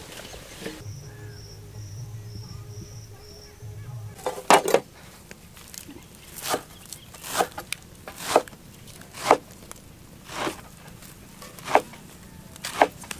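Fresh herb stems snapping as leaves are picked off by hand: a sharp short snap about once a second, starting about four seconds in. Before that, a faint high chirp repeats six times over a low steady hum.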